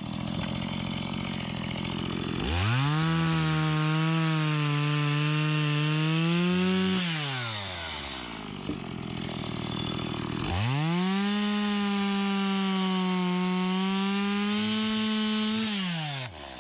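Two-stroke chainsaw idling, then opened up to full throttle twice for about five seconds each while it cuts through a log. It drops back to idle between the two cuts and again at the end.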